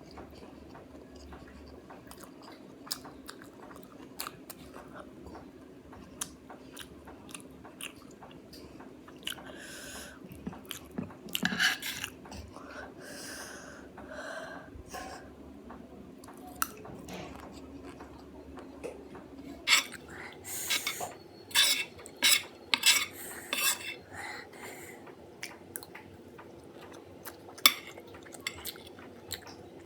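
Cutlery clinking and scraping against a plate, with chewing sounds close to the microphone. The sharpest clinks come in a quick cluster about twenty seconds in.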